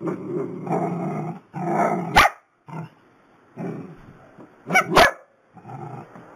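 Long-haired dachshunds barking and grumbling in short growly bursts, with sharp high barks about two seconds and five seconds in.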